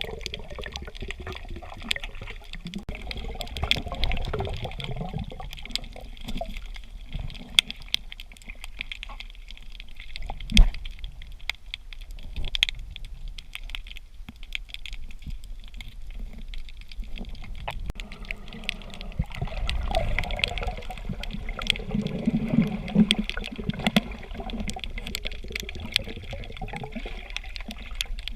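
Water sloshing and gurgling around a snorkeller moving through the sea, with many small clicks and crackles scattered throughout and one sharper knock about ten seconds in.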